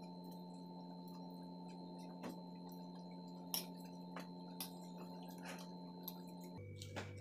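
Faint eating sounds: a handful of small clicks and taps of forks on plates and steel tumblers, scattered irregularly over a steady low hum.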